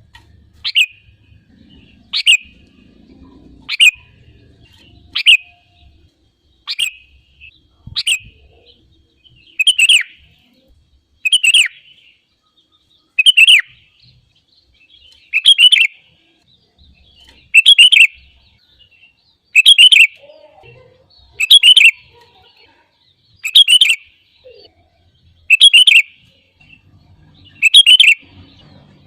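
Sooty-headed bulbul (kutilang) repeating one short, bright call phrase about sixteen times. The calls come about every one and a half seconds at first, then about every two seconds, and grow louder through the first half.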